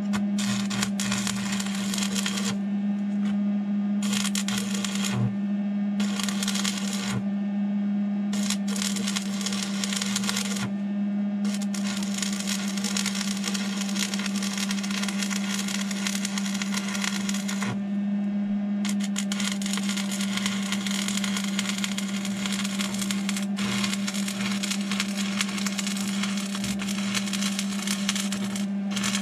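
Stick welding on a steel tractor PTO shaft: the arc crackles in runs of a few seconds, and one long run near the end goes on for about ten seconds, with short breaks between the beads. A steady hum runs underneath.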